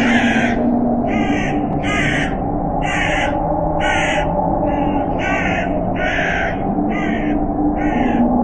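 Crows cawing repeatedly, a little faster than once a second, with harsh calls over a steady low drone.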